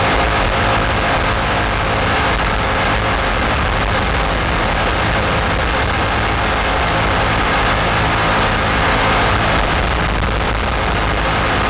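Racing jet boat's engine running steadily at speed, heard from onboard, with a constant rushing noise over it.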